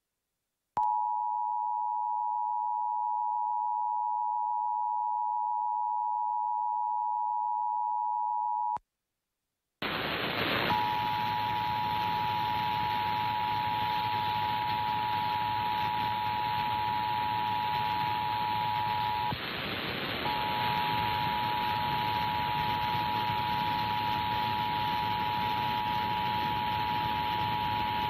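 Emergency Alert System attention signal for a required monthly test: the steady two-tone 853/960 Hz tone sounds cleanly for about eight seconds and stops. After a second's pause the same two-tone signal returns over a loud steady hiss, with a short break about two-thirds of the way through.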